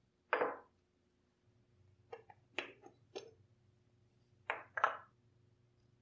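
Aluminium moka pot parts knocking and clinking against each other and the wooden table while the pot is taken apart. There is one knock about half a second in, a quick run of four around the middle and two close together near the end.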